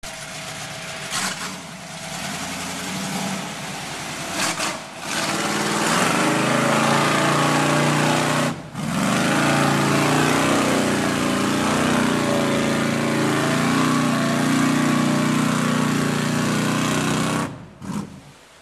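Lifted Chevrolet SUV mud truck's engine revving hard under load as it churns through a deep mud hole. It runs more quietly for the first few seconds, then goes loud and stays loud, with a brief dip about halfway through, and falls away near the end.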